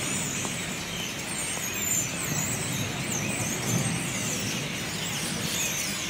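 A dense chorus of many birds calling from the trees, a constant overlapping mass of short high chirps, over a steady low rumble of city traffic.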